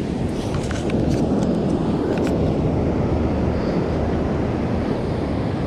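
Steady rumbling wind noise on the microphone mixed with beach surf, with a few faint clicks in the first two seconds.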